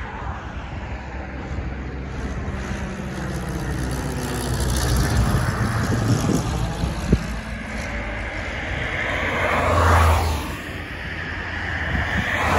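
Cessna 172 Skyhawk's piston engine and propeller droning as the light plane passes low overhead, the sound swelling and fading with its pitch sliding as it goes by.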